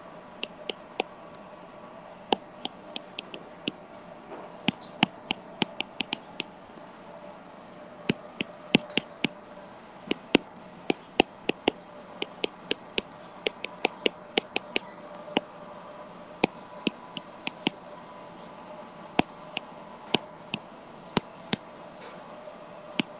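A stylus tapping and clicking on a tablet's glass screen during handwriting: short, sharp clicks in irregular clusters, several a second, over a faint steady hum.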